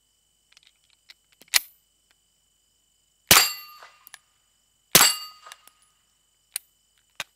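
Two suppressed 9mm pistol shots about a second and a half apart through an AB Suppressors F4L can, each a sharp report with a short ringing tail. A sharp click of the pistol's slide comes before them.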